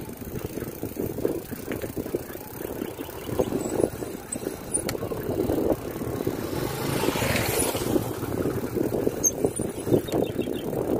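Mountain bike rolling over a rough concrete road, picked up by a phone on a handlebar mount: a steady, irregular rattling and knocking from the bike and mount over the bumps.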